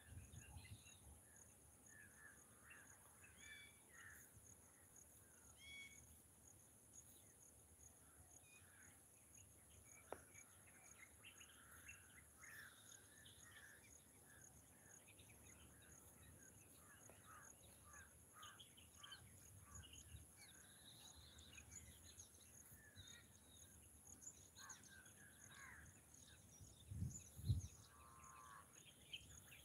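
Faint outdoor ambience: scattered short bird chirps over a steady high-pitched hiss. Two brief low thumps near the end are the loudest sounds.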